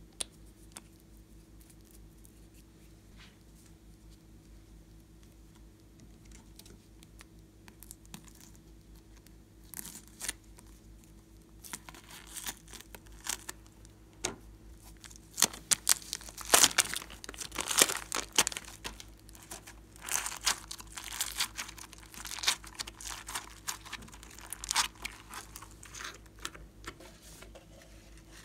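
Clear plastic bag of foam beads crinkling and rustling as it is handled, in irregular bursts of crackle with sharp clicks. It starts about ten seconds in, after a near-quiet stretch with a few faint clicks.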